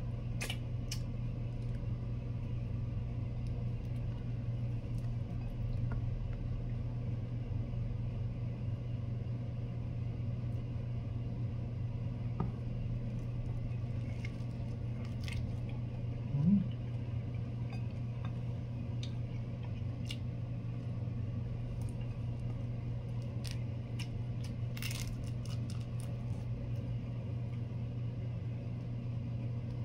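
Eating large cooked prawns by hand: scattered clicks and small cracks as the shells are peeled and bitten, with chewing, over a steady low hum. A short rising sound stands out about halfway through.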